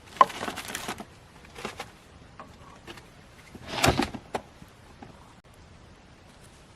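Short clattering knocks and rustles of things being handled, in three bursts; the loudest comes about four seconds in and is followed by a couple of sharp clicks.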